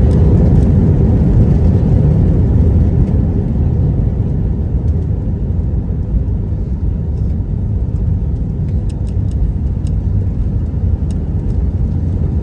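Steady low rumble of a moving vehicle, with a few faint ticks near the end.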